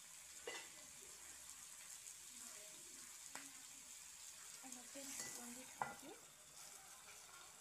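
Faint sizzling of pork pieces frying in a black iron kadai, with a few light clicks. Near the end, a steel plate set on the kadai as a lid gives a short clink.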